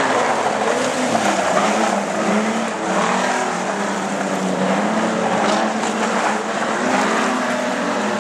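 A pack of street stock race cars running hard on a dirt track. Several engine notes overlap, each rising and falling as the drivers lift and get back on the throttle through the turn.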